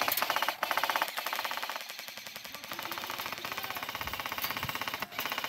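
Airsoft rifles firing long bursts of rapid automatic fire, a fast even rattle of shots with short breaks between bursts.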